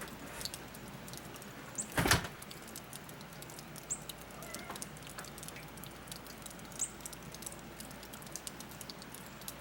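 Outdoor ambience in a snowstorm: a few brief high chirps of small birds over a faint steady hiss and scattered light ticks, with one sharp knock about two seconds in.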